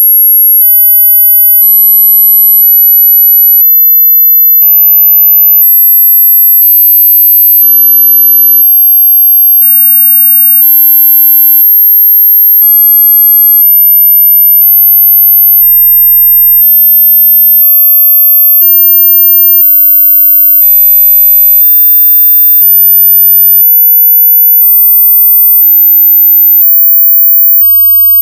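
Hearing-test sine tone: a single loud, very high-pitched pure tone stepping up in pitch every couple of seconds, in the range that fades from hearing with age.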